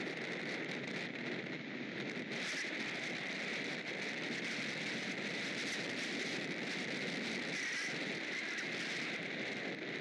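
High wind blowing through the nest tree's leaves and branches, a steady rushing rustle.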